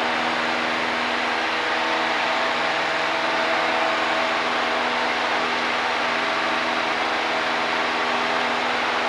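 Steady drone of a Cessna's piston engine and propeller with rushing wind, heard inside the cabin in flight. The engine's several steady tones sit over an even hiss and hold constant throughout.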